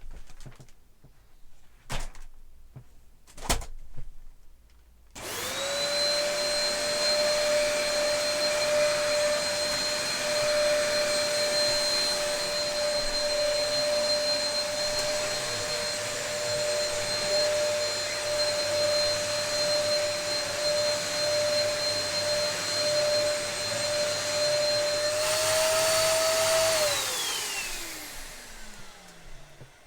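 A Dyson DC03 upright vacuum cleaner, after a few clicks and knocks, is switched on about five seconds in and runs with a steady high whine over a rushing hiss. Near the end its pitch rises slightly and the hiss grows, then it is switched off and the motor winds down with a falling whine.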